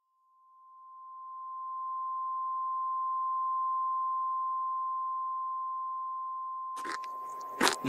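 A single steady electronic tone, pure and high-pitched like a test tone, swelling in over the first two seconds and slowly easing off. Near the end, sudden rustling and clattering noise cuts in over it.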